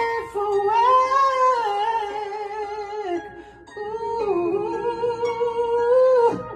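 Music: a voice humming a melody in long held notes that glide between pitches, in two phrases with a short break about three seconds in.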